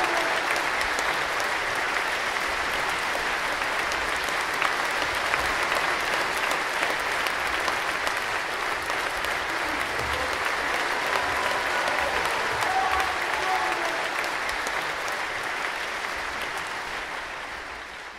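Audience applauding steadily, dense clapping that fades away near the end.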